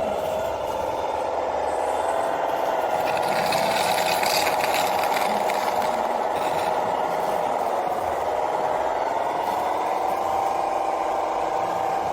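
Radio-controlled construction machine's small electric motor whining steadily, its pitch dipping and rising slightly, with a brief hiss of scraping about three to five seconds in.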